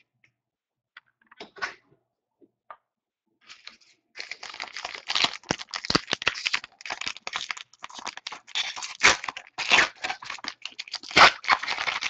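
Plastic wrapper of a 2014 Donruss baseball card pack being torn open and crinkled by hand. It starts about four seconds in, after a few faint taps, and goes on as a dense run of crackling.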